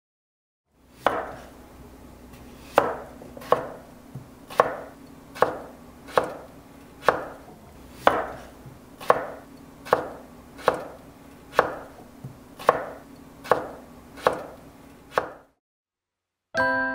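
A series of sharp knocks, about one a second and unevenly spaced, each ringing briefly, over a low steady hum; they stop about a second and a half before the end.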